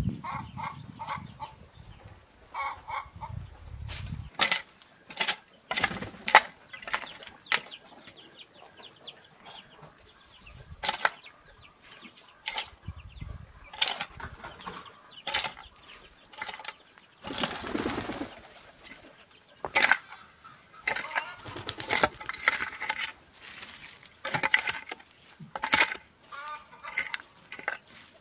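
Hand hoe chopping and scraping into loose garden soil: repeated irregular strikes, roughly one or two a second, with a longer scrape partway through.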